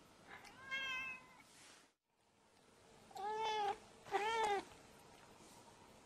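Domestic cat meowing three times: one meow about a second in, then two more in quick succession a couple of seconds later, each rising and falling in pitch.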